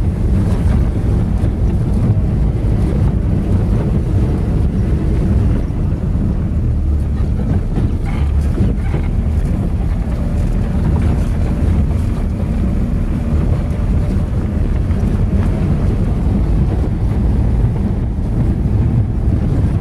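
Steady low rumble of a car driving on a dirt road, heard from inside the cabin: engine and tyres on the unpaved surface, with occasional faint knocks from the bumps.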